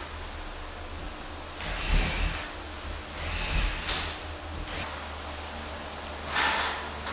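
Cordless drill driving screws in two short bursts, about two seconds in and again a second and a half later, fastening a wooden cleat to the wall. A brief handling rustle follows near the end.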